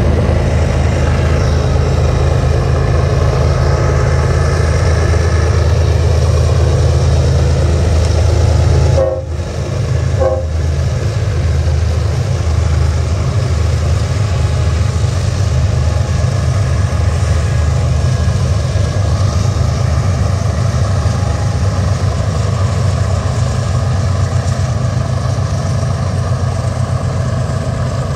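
BNSF diesel-electric freight locomotives working hard upgrade, a loud steady low engine drone under heavy load as they haul a double-stack container train up a steep grade. The sound drops briefly about nine seconds in, then carries on.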